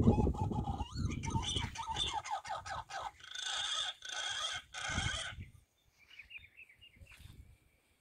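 Bird calls: a run of pitched calls in several short bursts that stop about five and a half seconds in, with fainter wavering calls after. A low rumble fades out in the first two seconds.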